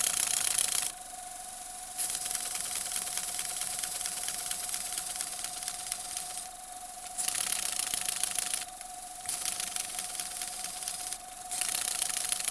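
Model two-cylinder single-acting engine running on compressed air: a rapid, pulsing hiss of exhausting air that cuts off and starts again several times as the reverse valve is worked.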